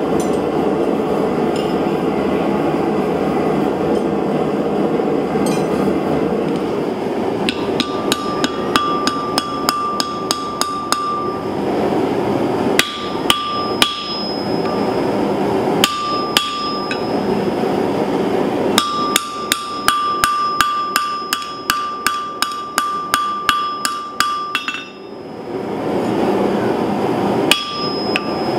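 Hand hammer striking a red-hot mild steel rod held upright on an anvil, in several quick runs of blows with a short ringing note after each one. The longest run comes a little past the middle. A gas forge's burner runs underneath as a steady rush.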